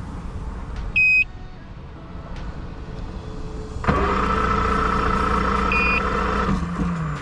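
Key-on warning beep from a bass boat's outboard, then the starter cranking the motor hard for nearly three seconds, with another beep midway, before the pitch drops. The motor is hard to start because of the boat's engine trouble.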